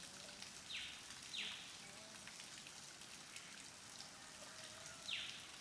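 Faint rainforest ambience with scattered dripping ticks. Twice, an animal gives a pair of harsh calls that sweep downward, once about a second in and again near the end.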